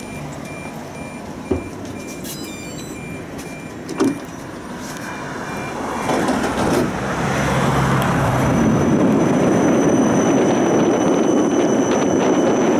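Siemens Combino tram's door-warning beeps sound for the first few seconds, with two sharp knocks as the doors shut. Then the tram pulls away: rolling noise and a thin high motor whine build up and settle into a steady run.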